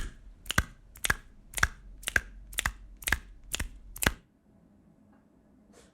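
A person making a "snap pop" sound: nine sharp pops at a steady pace of about two a second, stopping about four seconds in.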